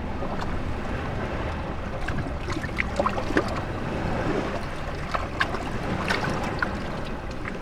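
Sea waves washing and sloshing between shoreline rocks, with bubbling gurgles and many small splashes and drips, over a low wind rumble on the microphone.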